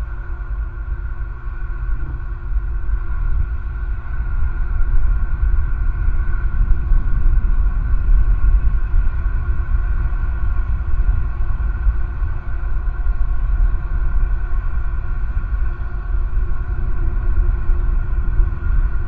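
Steady low outdoor rumble picked up by the nest camera's microphone, with faint steady high tones over it.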